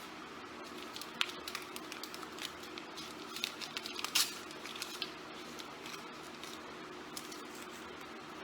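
Small clicks and taps of plastic parts being handled at a MIG welder's wire spool hub, the sharpest about four seconds in. The handling stops for the last few seconds, leaving faint steady background noise.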